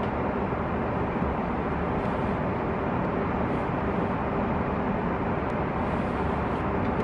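Steady cabin noise of an Airbus A330 in cruise: an even rush of engine and airflow noise heard from a seat inside the cabin.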